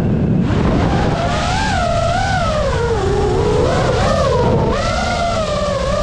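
FPV quadcopter's brushless motors whining in flight. The pitch rises and falls with the throttle: it climbs back in about half a second in, sags lowest around the middle, then climbs near the end. Heavy wind rumble runs beneath it.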